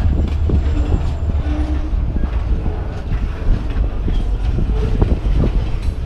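Loaded freight cars of a pulpwood train rolling past with a steady heavy rumble and irregular clacks of wheels striking the rail, a noise the uploader thinks points to a problem with the rail.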